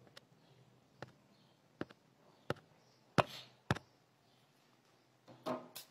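A string of separate light knocks and taps of hands on a tabletop, the loudest about three seconds in, with a short scuffle near the end.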